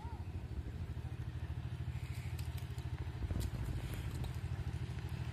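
Steady low, fast-fluttering rumble, with a few faint clicks over it.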